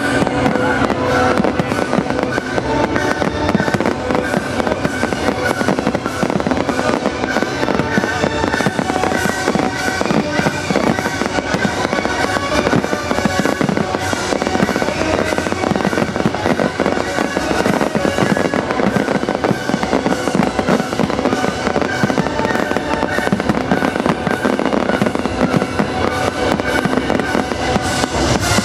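Fireworks display: a dense, continuous crackle of rapid bangs over loud music played with the show.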